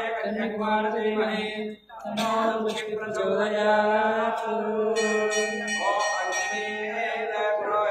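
Male chanting of Vedic mantras in a steady, sung recitation on a held pitch, with a short pause for breath about two seconds in.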